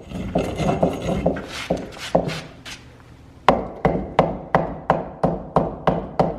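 Old mortar being chipped and scraped off salvaged bricks with a hand tool. It starts as a dense run of scraping strokes, then about halfway in settles into sharp, regular strikes about three a second.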